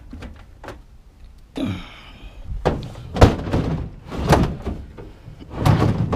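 A microwave oven's metal case being loaded into a pickup truck bed: a short scrape, then about four knocks and thumps as it is set down and shoved into place, the loudest about three seconds in.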